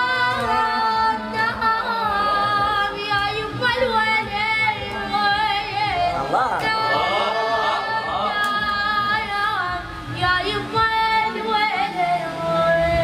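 A high voice singing an ornamented melody without words being spoken: long held notes that slide between pitches, with a stretch of quick warbling trills about halfway through.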